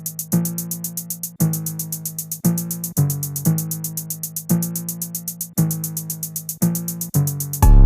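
Electronic music: a low, sustained keyboard or synth phrase restruck about once a second over a fast, even hi-hat pattern. Just before the end a much louder, bass-heavy section drops in.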